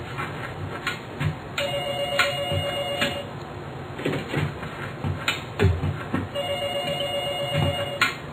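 A telephone rings twice, each ring a steady double tone lasting about a second and a half. Between and under the rings come soft knocks and thumps as a small ball is kicked and tapped with the feet.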